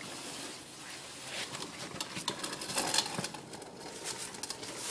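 Irregular crunching and crackling of ice: a run of short, uneven crunches, denser through the middle and end.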